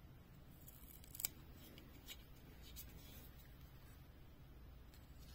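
Faint handling sounds of fingers pressing a sticker onto a small plastic toy road sign and turning it over: one sharp click about a second in, then a few light ticks and crinkles, over a low room hum.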